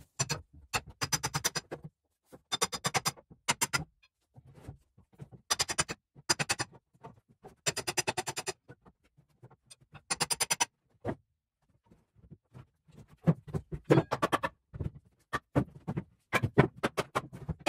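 A wood pallet being taken apart to salvage its boards: short bursts of rapid clicking and rattling, about a dozen of them with silent gaps between.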